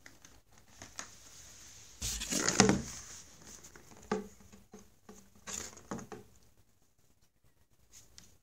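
A cat moving about inside a cardboard box, its paws and body scuffing and scratching the cardboard in irregular bursts, loudest about two seconds in.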